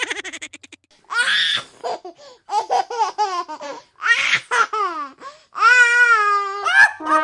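High-pitched laughter in repeated bursts, each run of quick 'ha' pulses falling in pitch, ending in one long, wavering laugh about six seconds in.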